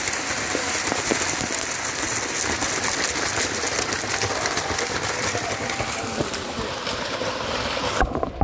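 Small waterfall pouring down a rock face: a steady, dense rush of splashing water. About eight seconds in, the sound suddenly turns muffled and dull as the microphone goes under the water of the pool below.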